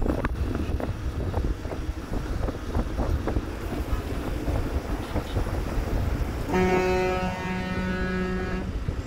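Wind buffeting the microphone of a moving motorcycle in traffic, with road rumble underneath. About six and a half seconds in, a vehicle horn sounds for about two seconds, with a short break in the middle.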